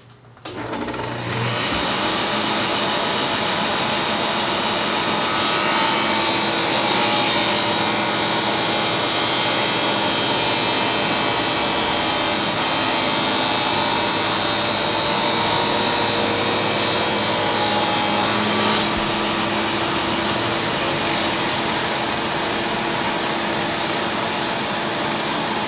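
A table saw starts up about half a second in and runs steadily while ripping a sheet of plastic board lengthwise. From about five seconds in to about eighteen the sound turns brighter and hissier as the blade cuts through the board, which cuts easily. The saw then keeps running free.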